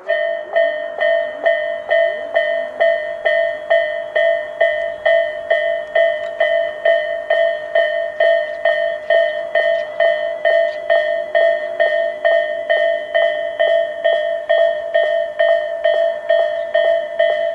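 Railway level-crossing electronic warning bells (Tobu "sound A" on both sides) start up suddenly and ring on in an even, fast repeat of about three strikes a second. This is the crossing warning that a train is approaching.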